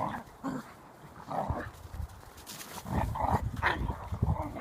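Australian Shepherds playing, giving short, scattered vocal sounds, busiest in the second half.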